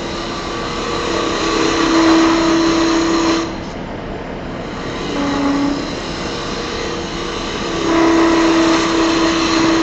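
Spindle gouge cutting into the end grain of a cherry blank spinning on a wood lathe. There are two loud bouts of cutting noise with a steady humming tone, one from about a second in to about three and a half seconds, and another starting near the end. The lathe runs more quietly between them.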